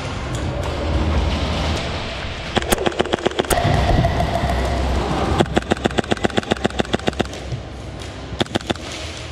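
HPA-powered blowback airsoft MP7 firing on full auto in rapid bursts of sharp clicks: a short burst about two and a half seconds in, a longer one of nearly two seconds starting about five and a half seconds in, and a few shots near the end, over a low rumble.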